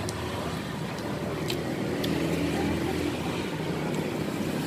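Street traffic: the steady low hum of vehicle engines running close by, with a few faint ticks over it.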